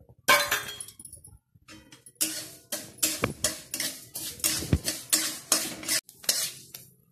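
Metal spatula striking and scraping against a steel kadhai while stirring fenugreek seeds roasting in a little oil. One loud clank just after the start, then quick clinking scrapes at about three a second from about two seconds in.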